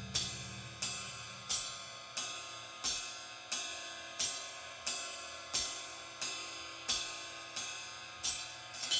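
Background music in a quiet passage: evenly spaced cymbal strikes, about three every two seconds, each ringing off, over faint held tones.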